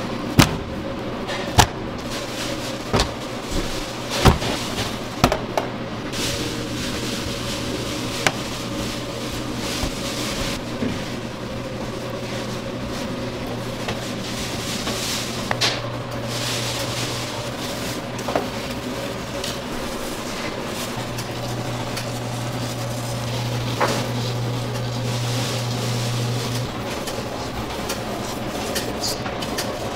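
Sharp knocks and taps of raw pork belly slabs and a knife on a stainless steel worktable, several in the first few seconds and a few more later. They sound over the steady hum of commercial kitchen ventilation.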